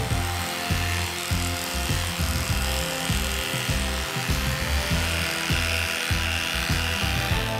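Electric dog clippers buzzing as they shave a dog's coat, over background music with a steady beat.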